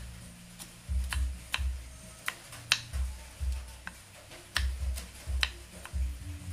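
Kitchen knife slicing shallots and bird's eye chillies on a wooden cutting board. The blade hits the board in sharp, irregular clicks about every half second, with dull low knocks between them.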